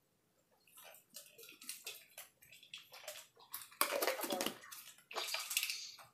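Rustling and shuffling as people move and clothing rubs close to the microphone, in irregular crackles that are loudest about four seconds in.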